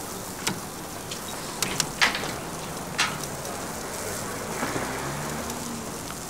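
Outdoor street background noise, a steady hiss, broken by a few sharp knocks and clicks about half a second, two seconds and three seconds in.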